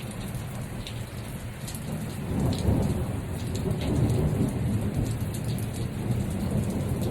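Light rain falling with scattered drop ticks, while a long low rumble of thunder swells about two and a half seconds in and keeps rolling.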